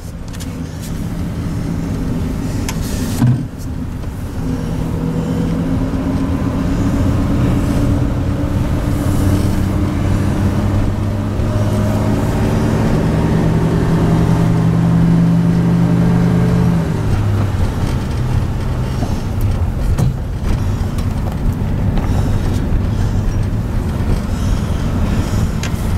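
1950 DeSoto's flathead straight-six heard from inside the cabin while driving, its note climbing slowly as the car gathers speed, then dropping back a little over halfway through. A single thump about three seconds in.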